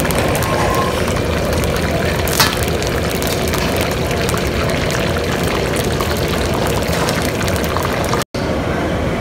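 Vegetable samosas deep-frying in hot oil in a steel wok: a steady, dense sizzle and crackle of bubbling oil. A single sharp metallic click about two and a half seconds in, from the metal spoon touching the pan, and the sound breaks off for an instant near the end.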